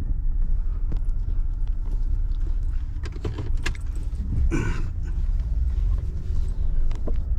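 Steady low rumble of a truck on the road, heard inside the cab. Scattered light clicks and rattles sound through it, and a short, louder noise comes a little past halfway.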